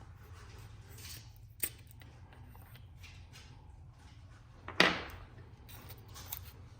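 Small handling sounds of the Acebeam H16 flashlight as its threaded cap is twisted on and off: soft rustling, a light click about a second and a half in, and a louder sharp click near five seconds.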